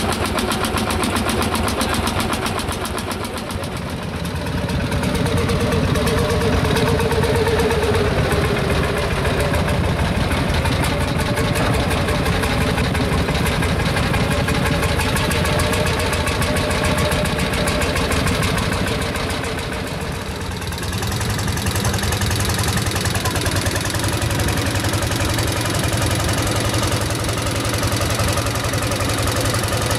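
Single-cylinder hot-bulb two-stroke tractor engines running with a rapid, even beat. The sound dips and changes in character twice, about four seconds in and again about twenty seconds in.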